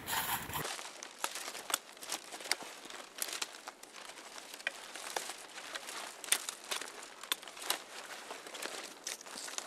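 Dry twigs and thin sticks cracking and rustling as gloved hands work them into a stick nest: an irregular run of small, sharp snaps.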